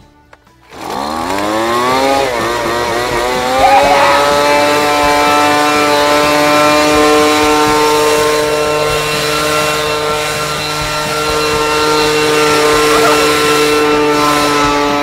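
Handheld gas leaf blower's two-stroke engine revving up about a second in and then running steadily at high speed.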